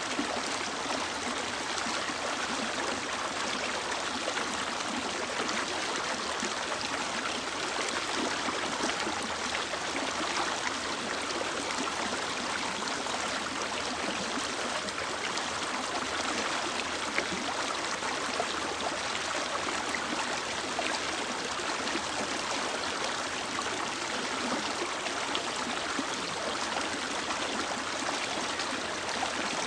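Mountain stream flowing steadily, its water rushing and gurgling over rocks.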